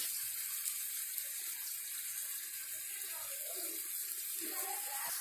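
Batter-coated green chillies (mirchi bhajji) sizzling steadily in hot oil in a frying pan, cooking on their second side.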